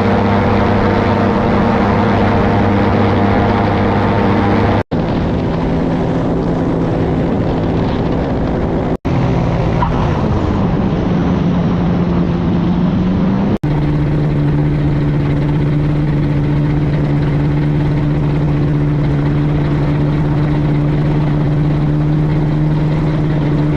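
Quicksilver ultralight aircraft's engine and propeller running steadily, with wind rush. The sound drops out sharply three times, and the engine note dips and climbs again about ten seconds in, then holds a higher steady pitch for the last part.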